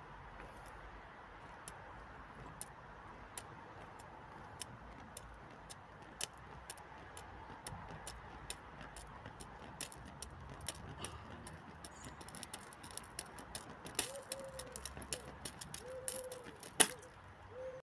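Plastic clothes peg burning, crackling and popping over a faint hiss. The pops come more often in the last few seconds, with one loud pop near the end, and the sound cuts off suddenly.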